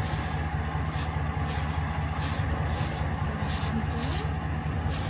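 A car driving at steady speed: a constant low engine and road rumble under a steady hiss of tyre and wind noise.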